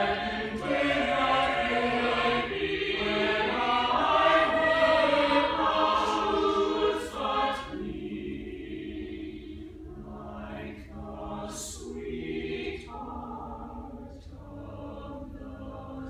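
Mixed-voice high school choir singing in harmony, full and loud at first, then dropping to a soft passage about halfway through, with crisp 's' consonants sung together.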